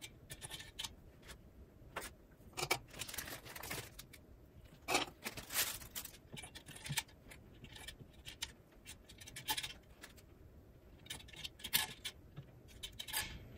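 Steel latch needles clicking and scraping as they are slid one at a time into the slots of a Dean and Bean sock machine's plastic needle cylinder, with small metallic jingles from the loose needles in the hand. The clicks come irregularly, with a few longer scrapes.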